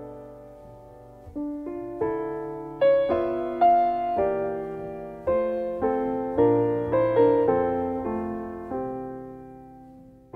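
Slow, gentle piano music: soft chords struck every second or so and left to ring away, fading down near the end.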